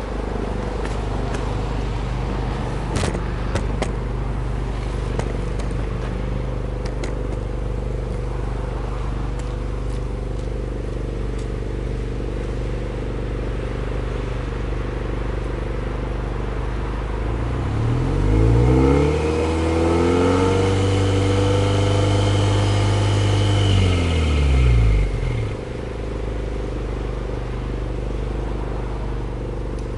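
Subaru Legacy Touring Wagon 2.0 GT spec.B's EJ20 turbocharged boxer four idling steadily, heard at its exhaust tailpipes. A little past halfway it is revved up, held high for about five seconds, then drops back to idle.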